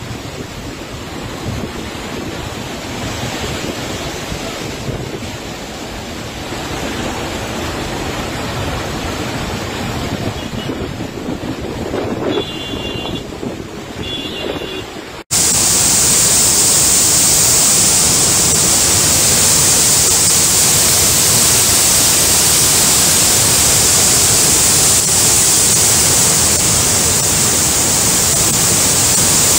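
Muddy floodwater torrent rushing down a hillside, with wind buffeting the microphone. About 15 s in it cuts abruptly to a louder, steadier, hissing rush of floodwater.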